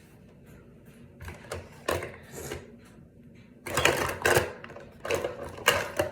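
Small hard objects clattering and clicking in two bursts of rapid clicks, the second one longer and louder.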